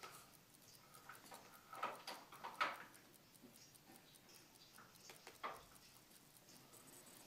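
Quiet, sparse experimental electronic sound piece: faint scattered clicks and ticks with a few short soft swishes, three of them close together about two seconds in and one more past the halfway point.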